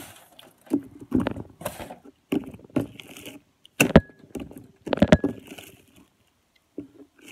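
Elmer's glue slime being squished and stretched in the hands, a string of short wet crackles. Two sharper pops come about four and five seconds in as air bubbles worked into the slime burst.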